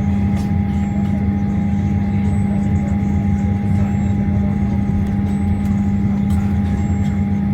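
Steady cabin drone inside a Boeing 737-900ER airliner on the ground after landing: a low hum with a thin, steady whine above it and a few faint clicks.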